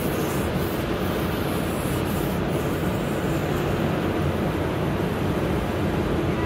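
Tunnel car wash machinery running, heard from inside the car's cabin: a steady, even noise with no breaks.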